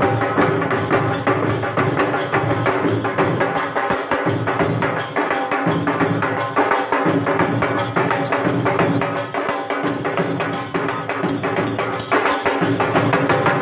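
Dhamal music: fast, steady drumming under a dense jingling of bells, the dancers' ankle bells (ghungroo) shaking in time as they stamp.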